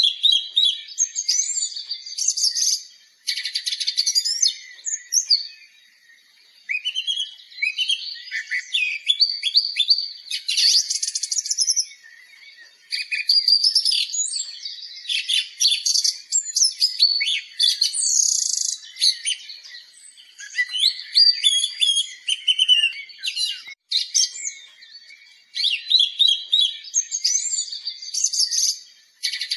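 Songbirds chirping and singing in quick, varied, overlapping phrases, with short lulls between bursts.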